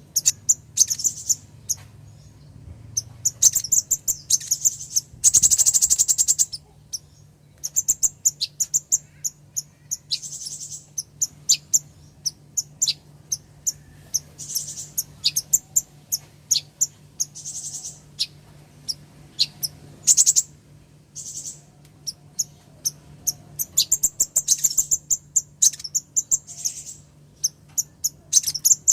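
Female kolibri ninja sunbird calling: a long run of sharp, high, quick chirps in irregular clusters, broken by short rapid trills, the female's call used to draw a male into song. A faint steady low hum runs underneath.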